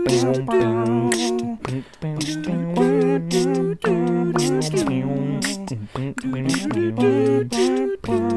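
A cappella vocal music: several voices sing held chords and a bass line over beatboxed percussion with a steady beat.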